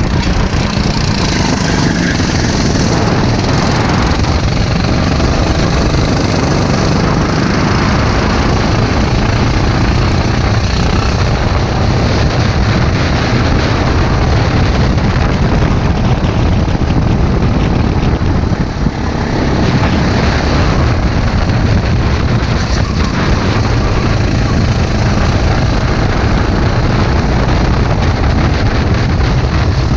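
Sodi race kart's engine running hard at racing speed, heard from onboard with heavy wind rush on the microphone, loud and continuous, with a brief dip in level about two-thirds of the way through.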